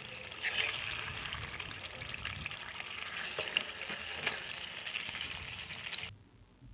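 Chicken curry sizzling and bubbling in its oil in a pan on low heat, with a few faint clicks. The bubbling oil is the sign that the curry is ready. The sound cuts off suddenly about six seconds in.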